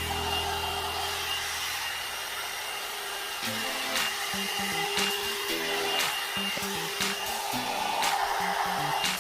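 One-step hot-air brush hair dryer blowing steadily on its low setting, with a steady whine, over background music with a beat about once a second.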